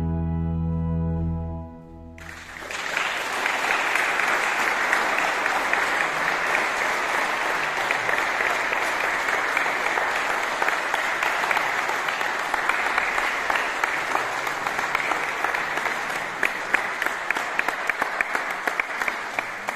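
An organ's closing chord held steady and released about two seconds in, then an audience applauding; the clapping thins out into separate claps near the end.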